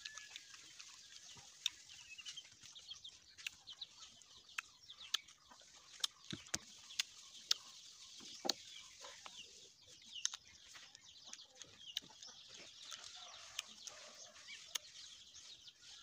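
Crisp Indian jujube (ber) fruit being bitten and chewed: sharp, irregular crunching clicks, about one a second, over faint birdsong with short high chirps.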